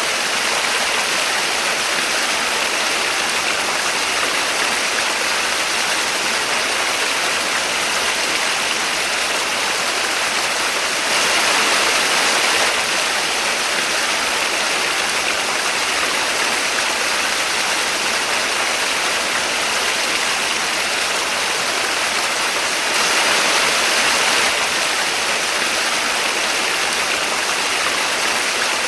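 Small waterfall: a steady rush of falling, splashing water with little low rumble, briefly a little louder twice.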